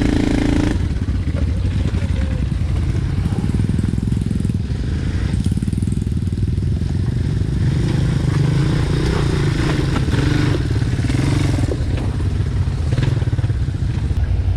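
ATV engine running steadily while riding along a trail, with small shifts in engine speed.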